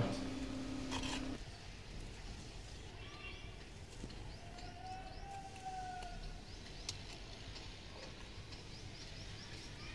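Faint birds chirping, with a low steady hum that stops after about a second and a half and a single click about seven seconds in.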